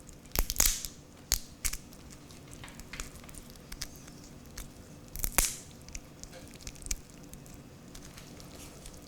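Kitchen scissors cutting up a raw lobster tail's shell, with the shell cracking and crunching as it is pried open. Scattered clicks and snips, the loudest about half a second in and again about five seconds in.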